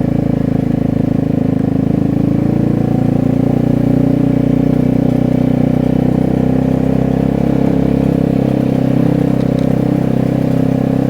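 Vespa 250 GTS scooter's single-cylinder four-stroke engine and loud exhaust running steadily at cruising speed, its pitch nearly constant.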